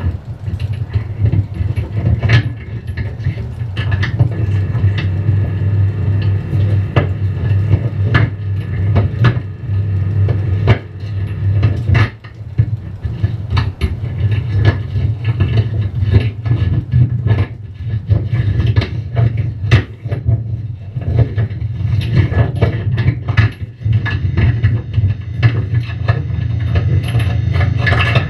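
Experimental noise from an electric guitar laid flat on a table and run through effects pedals: a steady low drone with irregular sharp clicks and scrapes struck over it.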